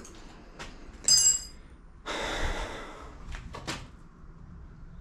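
A short, bright metallic clink that rings briefly about a second in, then a loud breath out lasting under a second, with a few light knocks around them.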